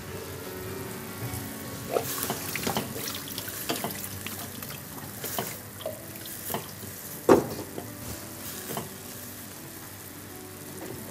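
Stovetop cooking: a utensil clinking and knocking against metal pots over a steady hiss, with a louder knock about seven seconds in.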